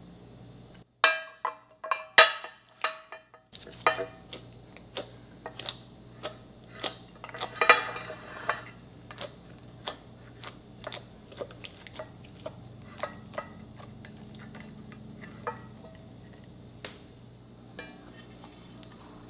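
Glass baking dish knocked and set down on a stone countertop, a few loud clinks with a short ring in the first few seconds. Then clear slime is pressed and spread in the dish, a run of small sticky clicks and pops that thins out near the end.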